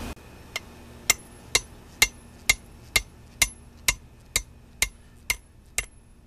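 Hand hammer forging red-hot steel on an anvil: about a dozen even blows, roughly two a second, each with a short metallic ring, the first one light.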